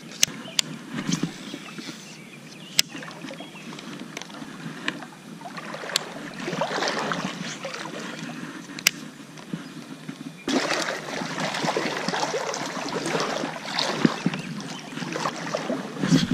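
Water sloshing and splashing around a person's legs while wading a shallow river, uneven and growing louder about ten seconds in, with a few sharp clicks from handling the gear.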